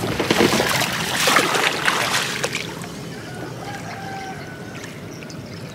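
Shallow floodwater splashing and sloshing as a plunge basket is driven down into it, dying away after about three seconds to a low trickle.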